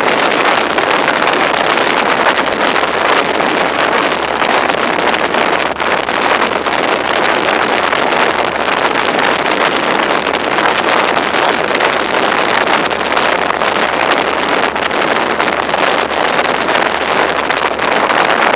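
Steady rush of wind and water from a motorboat under way at sea, with wind buffeting the microphone; an even, unbroken noise with no distinct events.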